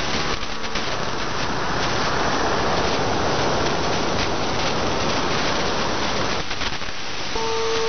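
Shortwave radio receiver tuned to 9035 kHz giving a steady rushing static hiss with faint crackles. Near the end a steady tone with one overtone comes in over the static.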